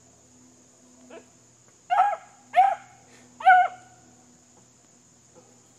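Beagle puppy giving three loud, short barks in quick succession, each arching up and down in pitch, after a fainter short call about a second in.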